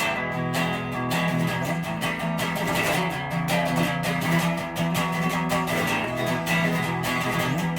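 Warmoth Custom Shop Stratocaster electric guitar with Lindy Fralin Vintage Hot pickups, played through a One Control BJF-S66 amp and 1x12 cabinet: chords and notes picked in quick succession, ringing on continuously.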